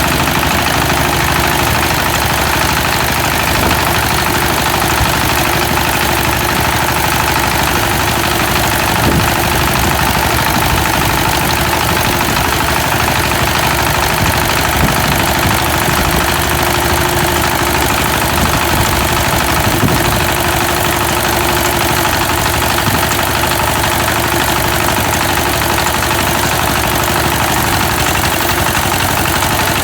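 Engine of a homemade rice-harvesting machine running loudly at a steady, unchanging speed.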